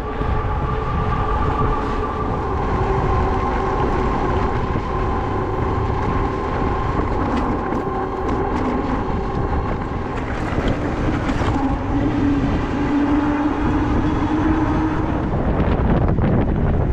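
ENGWE M20 electric bike riding at speed: a steady whine from its rear hub motor over wind rumble on the microphone and tyre noise. About two-thirds of the way through the whine drops to a lower tone, and a few light rattles come over bumps.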